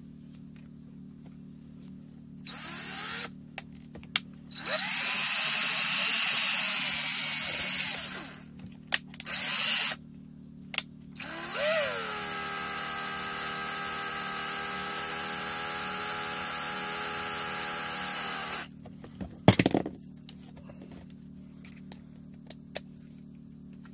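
Small handheld power drill running in several bursts, the longest about seven seconds, each spinning up to a steady high whine. A few sharp knocks follow near the end.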